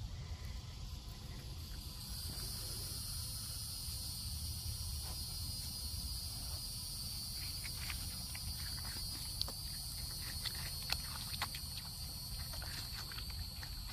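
A white-tailed deer biting and chewing watermelon from a hand: a scatter of short, wet crunches from about seven seconds in. Insects drone steadily behind it, and there is a low wind rumble.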